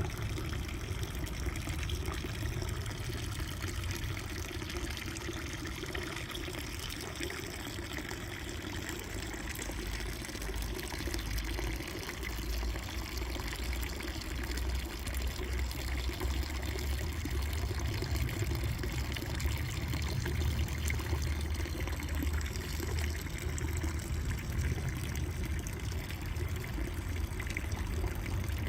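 Water running and splashing in a steady, unbroken rush, with a deep low rumble underneath.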